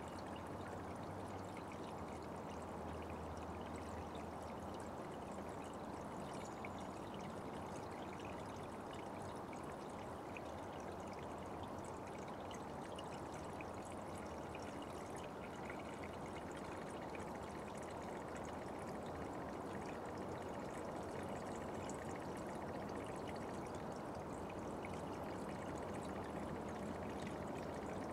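Small forest brook running steadily, a constant rush of water with fine trickling splashes.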